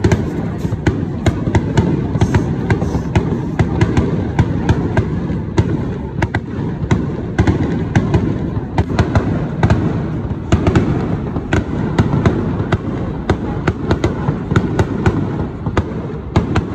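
Aerial firework shells bursting in a rapid, continuous barrage: many sharp cracks, several a second and irregularly spaced, over a constant low rumble of booms.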